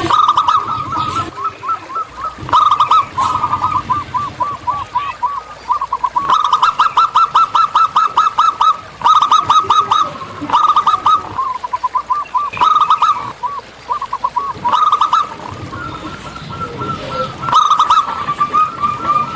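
Zebra doves (local perkutut) cooing: rapid trains of short, staccato notes, several series overlapping at slightly different pitches, repeating throughout.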